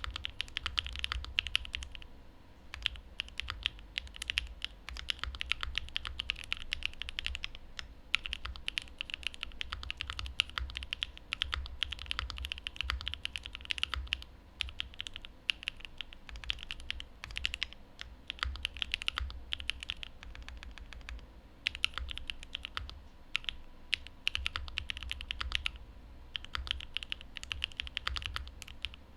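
Steady fast typing on a Mode Envoy custom mechanical keyboard with a carbon fiber plate, lubed Cream Soda linear switches and GMK doubleshot keycaps. It is a dense run of key strikes with a few brief pauses.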